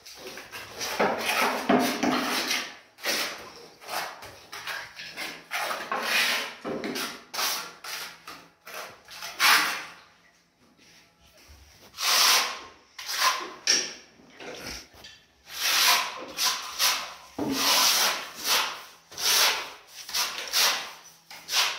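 A cloth or sponge rubbed in quick, irregular strokes over a rough plastered wall, wiping it down before tiling. Near the end, a notched trowel scrapes tile adhesive across the wall.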